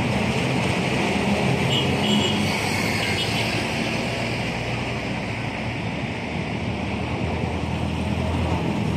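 Steady city road-traffic noise, cars running past on a busy avenue, with a low rumble under it. A few brief high tones show up about two seconds in.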